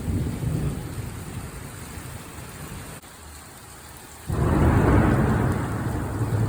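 Thunder rumbling low under heavy rain, then a loud boom about four seconds in that breaks suddenly and keeps rolling.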